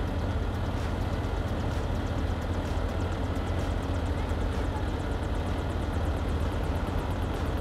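Heavy machinery engines running steadily: a low drone under a noisy wash, with a fast, even ticking high up through the middle and later part.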